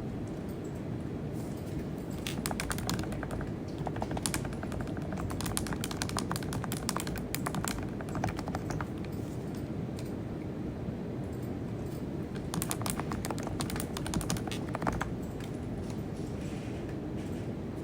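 Typing on a computer keyboard: rapid key clicks in two runs, one of several seconds and a shorter one later, over a steady low hum.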